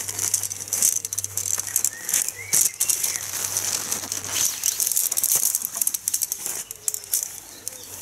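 A nylon tent-pole bag rustling as folded tent poles are pulled out of it, the joined pole sections clicking and rattling against each other.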